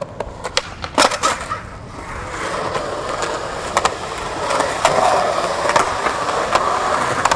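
Skateboard wheels rolling over concrete, with several sharp clacks of the board, loudest about a second in. The rolling grows louder from about two seconds in, with a few more clacks later.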